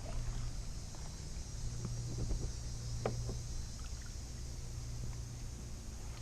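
Kayak paddling: water splashing and dripping from the paddle blades, with a few short light knocks.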